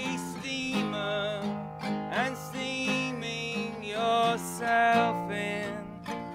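A man singing solo folk-style to his own strummed acoustic guitar.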